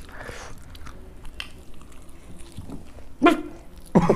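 Quiet eating sounds at the table, with scattered small clicks of fingers and puri in steel bowls and plates. About three seconds in comes one short, sharp vocal sound, and right at the end laughter breaks out.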